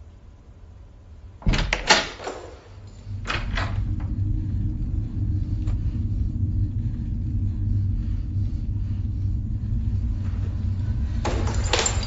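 A few sharp bangs about a second and a half in and another shortly after, then a steady low rumble that holds; another cluster of bangs comes near the end.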